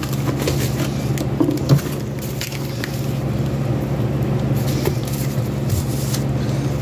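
Packaging being handled: scattered light crackles and clicks of bubble wrap and plastic as a bubble-wrapped bundle of graded card slabs is unpacked and slid across a laminate counter, over a steady low hum.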